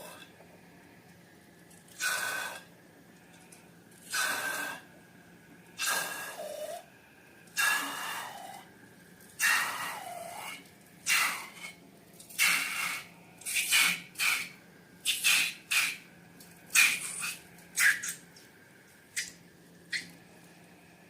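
Slime being squeezed and pressed by hand: a run of short, wet squishing sounds, about every two seconds at first and coming faster after the middle. A few of them slide down in pitch.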